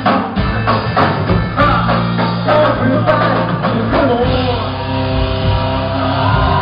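Live band (drum kit, electric guitars, keyboards and sousaphone) playing with a vocalist singing, heard from the audience. Drums beat steadily at first; about four seconds in, the drums thin out and long held chords take over.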